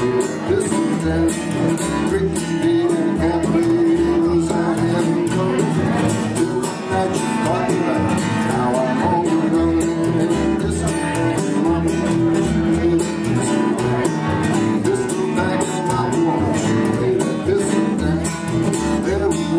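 Acoustic guitar strummed in a steady country rhythm with an upright double bass plucking the low notes beneath it, an instrumental break between verses.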